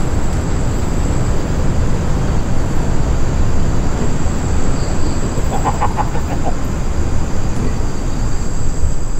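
Steady loud rumble of wind buffeting the microphone, with a thin steady high-pitched trill over it and a brief higher pitched sound about six seconds in.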